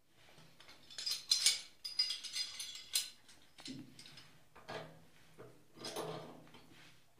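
Metal parts clinking, knocking and scraping as they are handled, in a run of short irregular knocks and rattles.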